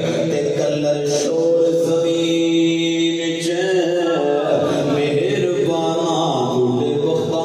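A man's voice chanting devotional verse (naat) into a microphone in long held notes, with a wavering, sliding run of notes near the middle.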